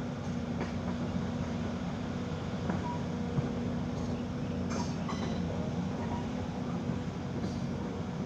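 Backhoe's diesel engine running steadily as the machine travels, a constant low drone with a few faint clicks and rattles over it.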